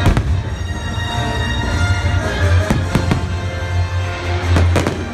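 Aerial fireworks shells bursting, five sharp bangs: one at the start, two in quick succession near the middle and two more near the end, over loud music with a heavy bass.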